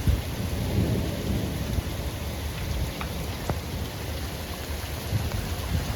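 Heavy rain pouring down on a deck during a thunderstorm, with a low, uneven rumble of thunder underneath and a few sharp drip ticks about three seconds in.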